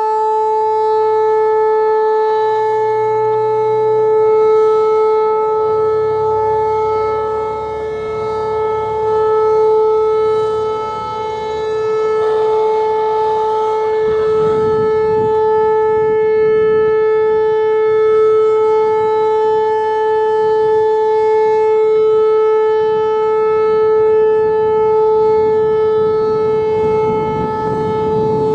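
Whelen Vortex R-4 electronic outdoor warning siren sounding a steady, unbroken alert tone during a siren test. The single held pitch swells and fades a little in loudness as the rotating siren head turns.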